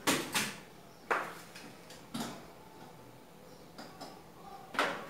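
Dishes and pans clattering as they are picked up and set down at a kitchen sink: a few sharp clinks and knocks, two in quick succession at the start and another near the end.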